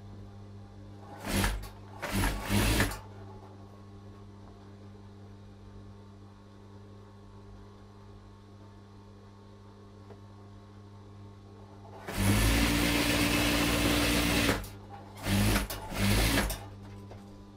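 Industrial lockstitch sewing machine stitching fabric in short bursts, with one longer run of about two and a half seconds near the end, over the steady hum of its motor idling between runs.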